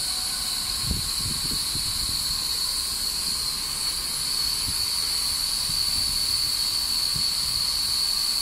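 Steady hiss with a constant high-pitched whine from an EN57 electric multiple unit standing at the platform with its onboard equipment running. Irregular low rumbles of handling or wind noise on the microphone run underneath.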